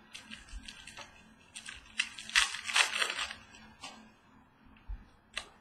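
Trading cards and pack wrapping being handled: short crinkling and rustling noises, loudest about two to three seconds in, with a sharp click near the end.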